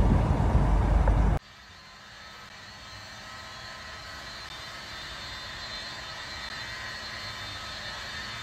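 Loud wind and road rumble from the tow truck driving at highway speed. It cuts off abruptly after about a second and a half, leaving a faint steady hiss with a thin high whine.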